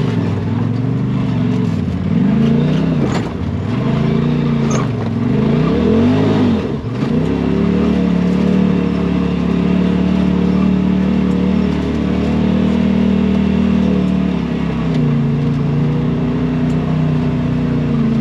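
Side-by-side UTV engine revving up and down in several quick swells, then running at a steady speed from about seven seconds in.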